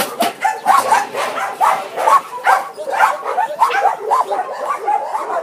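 Many dogs barking and yelping at once, short overlapping barks coming several times a second without a break.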